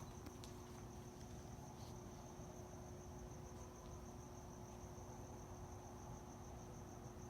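A cricket chirping in a fast, even trill, faint, with a low steady hum and rumble underneath.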